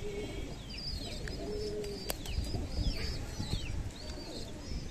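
Domestic pigeons in a loft: low cooing, under a stream of high squeaky peeps a couple of times a second, typical of squabs begging while being fed. A single sharp click comes about two seconds in.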